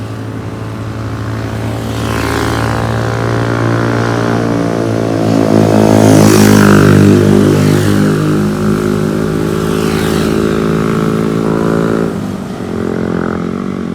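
Motorbike engine labouring at steady revs up a steep climb, growing louder as it passes close by about six seconds in, then fading.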